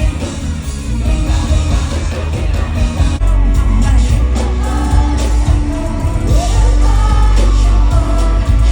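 Live K-pop concert performance: loud amplified music with singing over a heavy bass beat, which comes in stronger about three seconds in.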